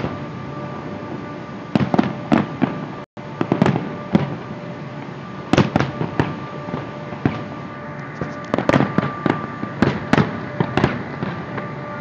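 Aerial fireworks going off in clusters of sharp bangs and crackles, several quick reports in each cluster, over a constant rumble of the display. The sound cuts out for an instant about three seconds in.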